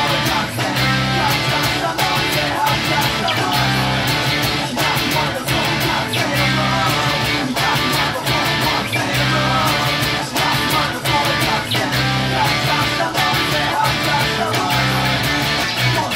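Loud rock music: a Fender electric bass played in steady driving notes along with a recorded band track with regular drum hits and some singing.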